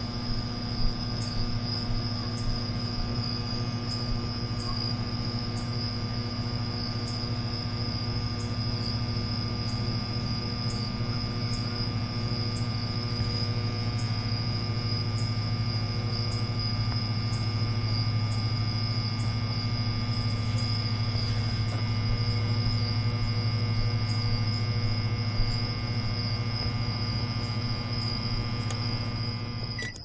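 Microwave oven running with a pen inside: a steady electrical hum, with faint regular ticking.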